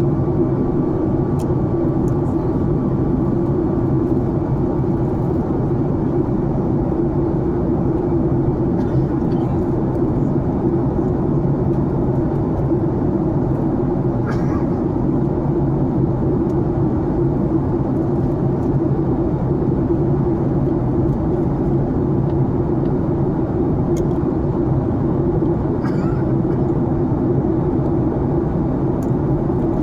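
Steady drone of an airliner's cabin in flight: jet engine and airflow noise with a low, even hum. A couple of faint, brief sounds rise over it about halfway through and near the end.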